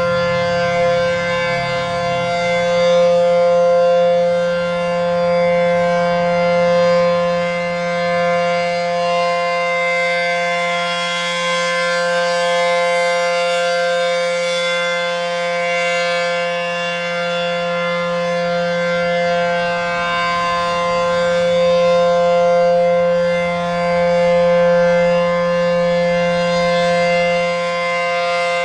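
ACA P-15 Penetrator 9/12-port rotating outdoor warning siren sounding a steady full-alert tone: a shrill chord held at constant pitch, swelling and fading in loudness as the siren head turns.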